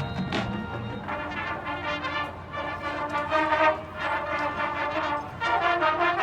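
High school marching band's brass section playing held chords.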